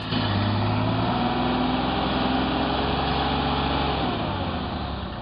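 Vehicle engine running steadily at raised revs, its pitch dropping about four seconds in as the revs come down.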